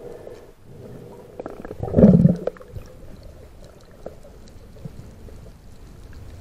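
Muffled underwater ambience picked up by a speargun-mounted camera, with faint scattered crackling clicks. A loud low rumbling burst comes about two seconds in.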